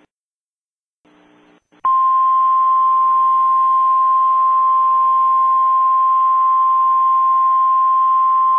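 Weather-radio alert tone: a single loud, steady tone near 1 kHz over radio hiss, starting just under two seconds in after a moment of dead air and holding unbroken. It signals that an alert bulletin is about to be read.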